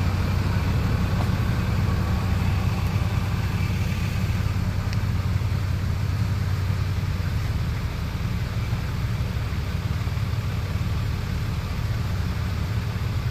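Four-wheel-drive vehicle's engine running at low revs, a steady low hum.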